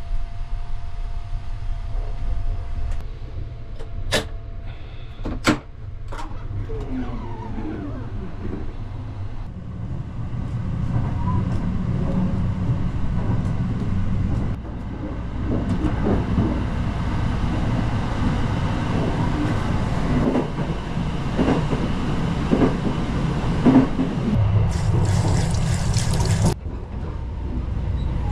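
Sunrise Express sleeper train running, heard inside the carriage: a steady low rumble of wheels on rail and body noise, with two sharp clicks a few seconds in. The rumble grows heavier about ten seconds in, and a hiss near the end cuts off suddenly.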